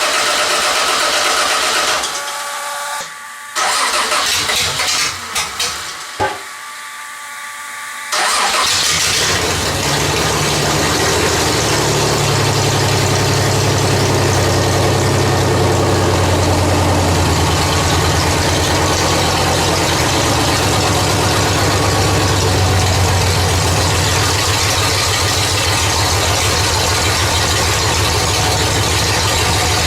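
Sand rail's Chevy 3.1 L V6 catching about eight seconds in, after a few short bursts of sound, then idling steadily. It is running on its original engine computer with new MAP, air temperature, O2 and throttle position sensors and new coils and ignition module.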